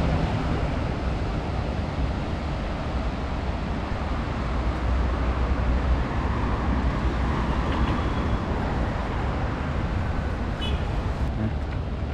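Wind buffeting the microphone, a steady rumbling noise, with road traffic beneath it.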